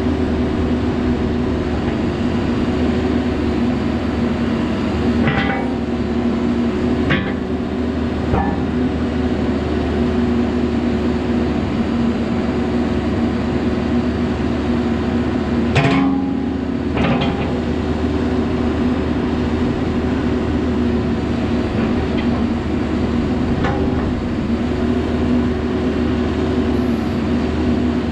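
Caterpillar 420F backhoe loader's diesel engine running steadily, with several sharp metallic knocks from the machine scattered through, the loudest about sixteen seconds in.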